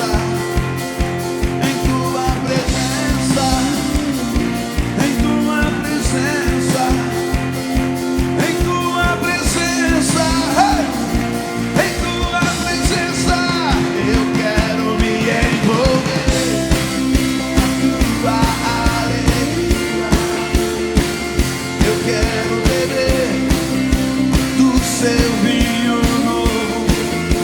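Live worship band playing an upbeat song with a steady drum beat, voices singing over it.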